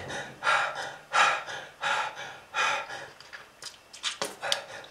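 A person breathing heavily: a run of rasping, gasping breaths about every 0.7 seconds, then a few short sharp catches near the end.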